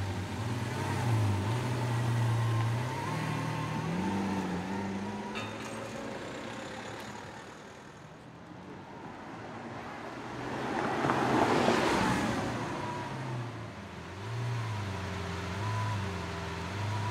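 Lamborghini Aventador's V12 engine idling with several short rev blips, its pitch rising and falling. About two-thirds of the way through, a louder rush of engine and road noise comes as a car drives past.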